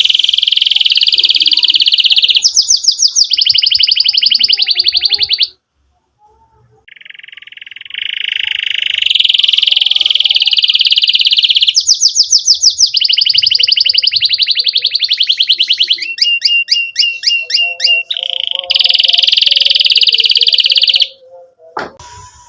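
Domestic canary singing a loud song. Long, even rolls alternate with fast strings of sweeping chirp notes, about eight to ten a second. The song breaks off for about two seconds some six seconds in, resumes, and stops shortly before the end.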